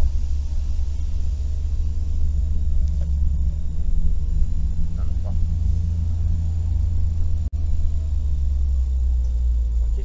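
Steady low cabin rumble of a Suzuki Every kei van underway, engine and road noise heard from inside. The sound drops out for a split second near the middle.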